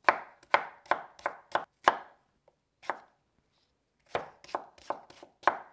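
Large chef's knife dicing cucumber on a wooden cutting board: sharp knocks of the blade striking the board, about three a second, in two quick runs with a gap of about a second between them.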